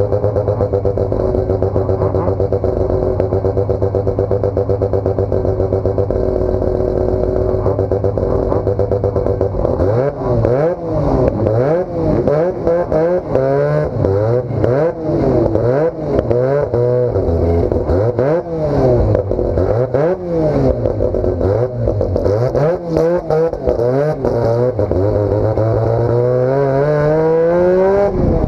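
Hotrod's rotary engine, heard from inside the cockpit, idling steadily for about ten seconds. It is then revved up and down in quick blips, about one a second. Near the end the revs climb steadily as the car pulls away.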